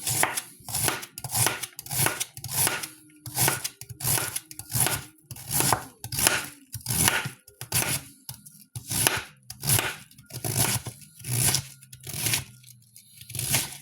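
Knife slicing slowly through a head of cabbage, one even stroke about every two-thirds of a second.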